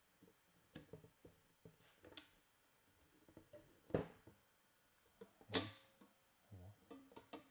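Handling noise from an AK handguard being test-fitted over a Saiga carbine's barrel: light clicks and taps of the handguard against the rifle's parts, with two sharper knocks about four and five and a half seconds in.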